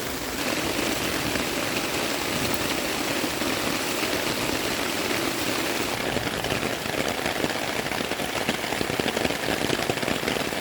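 Heavy rain pouring steadily, a dense even hiss of drops.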